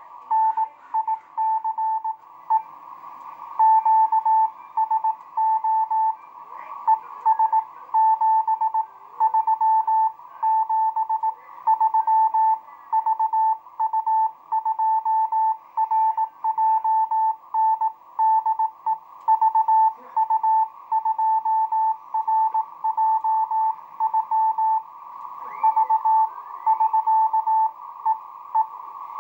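Morse code (CW) from an amateur radio transceiver: a single steady beeping tone keyed on and off in dots and dashes, over a constant hiss of band noise. The keying stops near the end, leaving only the hiss.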